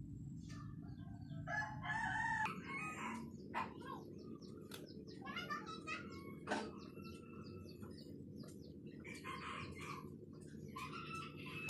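Chickens clucking and a rooster crowing in short, broken calls, over a steady low hum, with a few sharp clicks.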